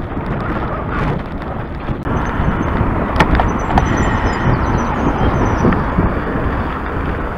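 Wind rushing over the microphone with a low road rumble, as from riding a bicycle along a road. The rush thickens about two seconds in, with a few faint clicks.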